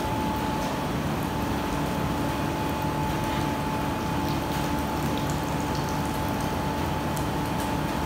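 Steady mechanical hum with a constant whine from an induction furnace's water chiller and its circulating pump running, with a few faint ticks.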